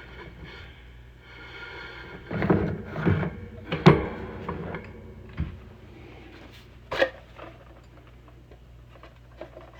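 Tools being handled on a workbench: a cluster of knocks and clicks about two to four seconds in, the sharpest near four seconds, then a single sharp click about seven seconds in.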